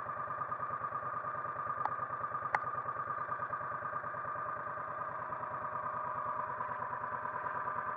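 A vehicle's engine idling steadily, with two light clicks about two seconds in.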